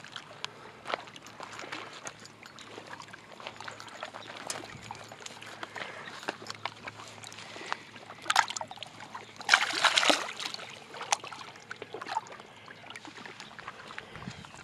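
Lake water splashing and sloshing at the shoreline as a largemouth bass is lowered into the water and released. The splashing is loudest for about a second, around two-thirds of the way through.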